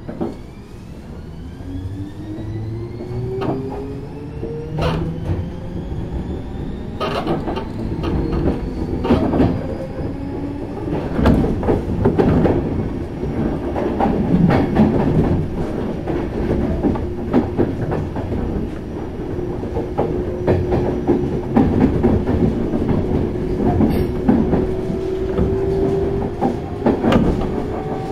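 Running sound inside a Kintetsu 6600 series field-chopper-controlled electric train as it picks up speed: motor and gear whine rising in pitch over the first ten seconds or so, then a steadier whine that keeps climbing slowly. Rail-joint clickety-clack and clicks from the wheels run throughout, over the rumble of the car.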